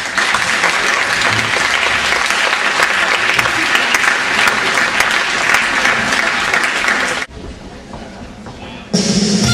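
Audience applauding with dense clapping, which cuts off suddenly about seven seconds in, leaving a quieter hush. Music starts just before the end.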